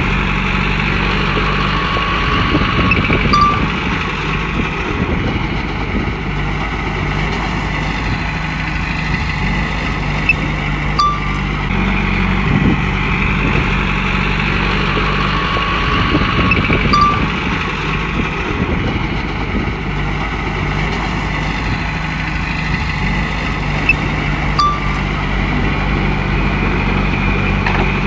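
Komatsu bulldozer's diesel engine running steadily under work, with a higher whine that rises and falls in a slow repeating cycle and a few short metallic clinks.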